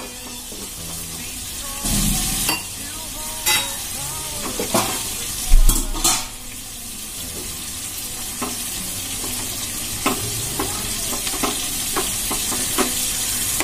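Steel plate lids clanking against steel pots a few times, the loudest about halfway through, then a steel spoon stirring and scraping fish-roe and potato masala in a steel pot with many small clicks. Under it all runs a steady sizzle from the pot on the gas flame.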